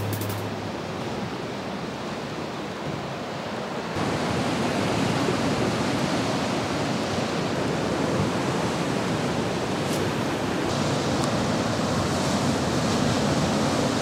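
Steady rush of sea swell and wind on the microphone. About four seconds in it steps up louder, with surf surging and breaking against rock cliffs.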